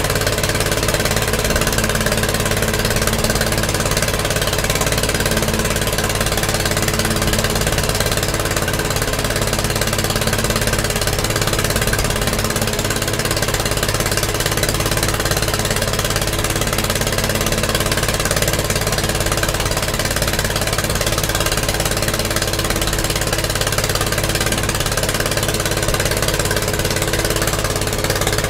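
Engine of a small wooden motorboat running at a steady speed under way: an even, unchanging drone with a constant rushing noise over it.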